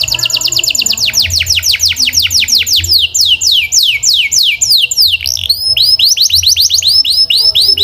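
Domestic canary singing: a fast run of repeated, downward-sweeping whistled notes that slows and drops lower. After a brief break about five seconds in, a new run of shorter notes that rise and fall begins.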